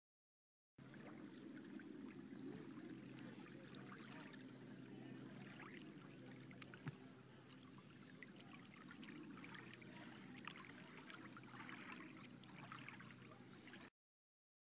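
Faint lapping of small waves on a shallow pebbly shoreline, a steady soft wash dotted with little ticks and trickles, with two small clicks midway. It starts about a second in and cuts off suddenly near the end.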